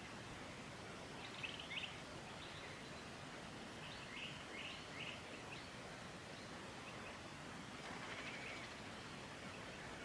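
Faint, short, high bird chirps in a few small clusters, over a steady outdoor hiss.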